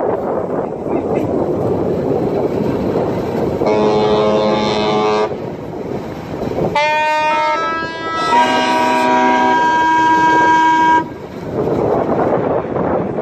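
Ship horns sounding three long blasts. The second swoops up in pitch as it starts, and the third is a chord of several tones. Steady wind noise on the microphone runs underneath.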